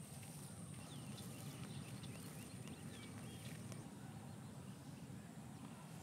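Faint open-air wetland ambience: small birds chirping in short calls during the first few seconds over a steady low rumble, with a thin, steady high whine that stops about four seconds in.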